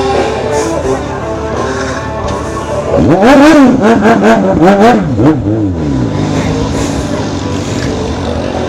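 Motorcycle engine revved hard in about three quick blips, its pitch rising and falling each time, about three seconds in. Background music and engine noise play before and after.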